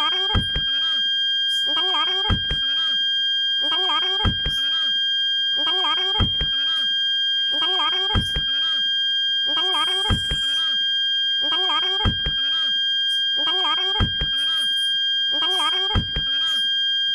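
Toyota Calya/Sigra parking sensor buzzer sounding one steady unbroken tone, the solid-tone warning that an obstacle is very close. About every two seconds a short thump with a warbling, voice-like sound repeats over it.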